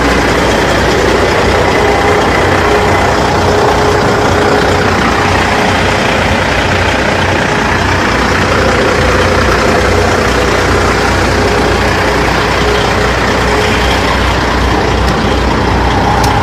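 Single-turbo 6NZ CAT C15 diesel engine of a 2003 Kenworth T600 idling steadily.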